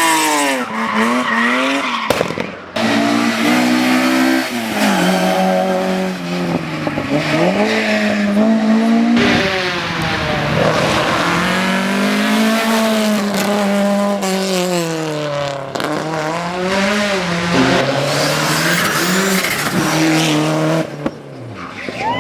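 Hill-climb race cars' engines at full throttle: the engine note climbs and drops again and again through gear changes and braking, with tyres squealing through the bends.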